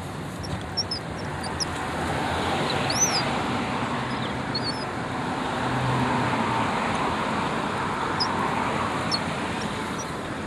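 Steady road-traffic noise that swells over several seconds and eases off again, like vehicles passing on a nearby road. A few brief bird chirps sound over it.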